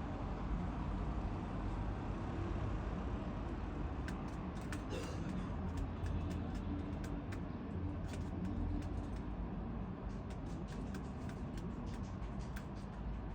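Steady low background rumble with scattered light clicks and taps.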